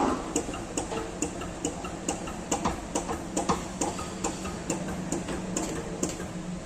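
Regular ticking, about two to three ticks a second, over a steady low hum.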